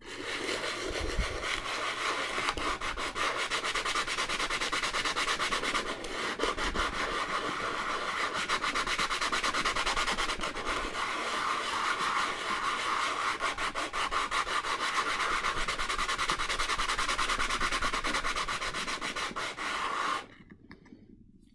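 Dried avocado stone rubbed rapidly back and forth on sandpaper: a continuous scratchy rasping of sanding that stops abruptly near the end.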